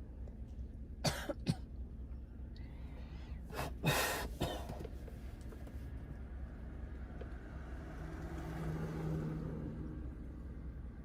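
A person coughing: two short coughs about a second in, then a louder bout of coughing around four seconds in, over a steady low hum.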